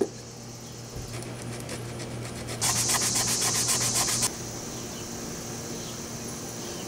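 Hand sanding a plastic taillight lens with a small piece of sandpaper: rapid back-and-forth strokes, several a second, loudest for a couple of seconds near the middle, with fainter strokes before.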